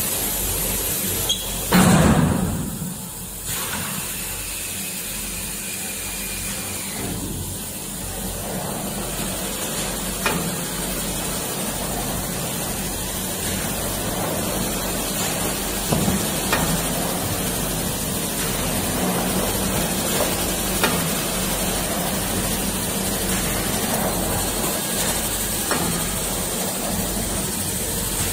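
Automatic paper log saw running as it cuts kitchen-towel logs into rolls: a steady machine hum and hiss. There is a loud rushing burst about two seconds in, and a few sharp clicks later on.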